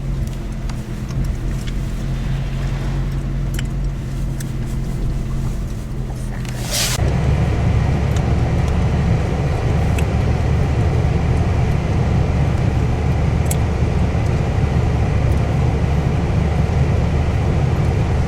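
A car's engine and road noise heard from inside the cabin while driving: a steady low hum that turns into a louder, rougher rumble about seven seconds in, just after a short sharp noise.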